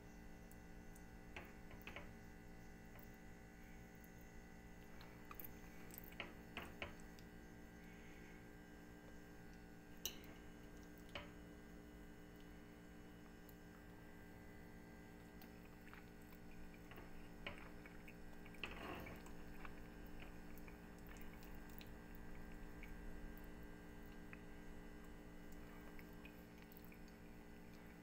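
Near silence: room tone with a steady electrical hum and a few faint scattered clicks.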